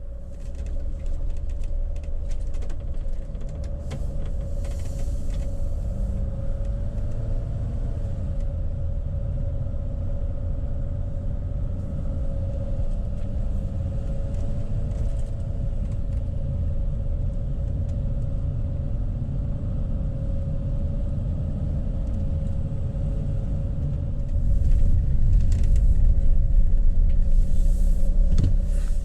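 Vehicle driving on the highway, heard from inside the cabin: steady engine drone and road rumble with a faint steady hum, growing louder for the last few seconds.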